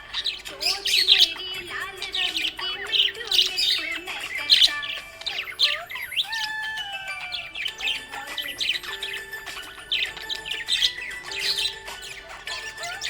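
Budgerigars chirping, many short high chirps one after another, over background music.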